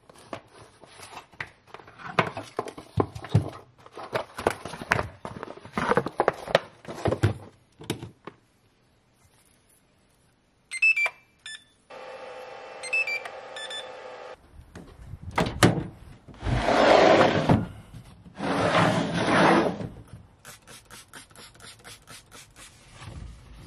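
Clicks and knocks of RC battery boxes being handled. Then a hobby LiPo charger gives several short beeps as a battery is plugged in, and its cooling fan hums steadily for a couple of seconds. After a thump come two long hisses of a trigger spray bottle, and then light tapping.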